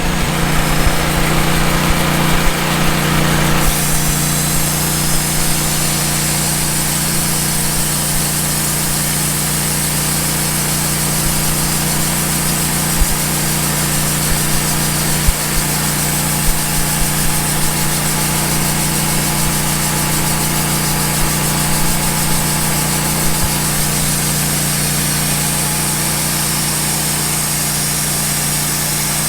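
Wood-Mizer LT15 band sawmill running steadily, its engine under load as the band blade cuts lengthwise through a log. A higher hiss joins about four seconds in and holds, with a few light knocks along the way.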